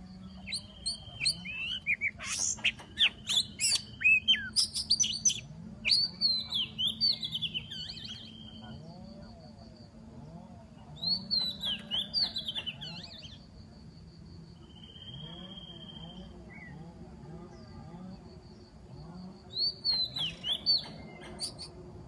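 Oriental magpie-robin (kacer) singing loud, varied whistles and chirps in three bouts: a long one at the start, a shorter one about halfway through and another near the end.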